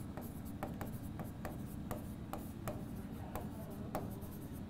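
Marker pen writing on a whiteboard: a run of short, irregular scratchy strokes, a couple a second.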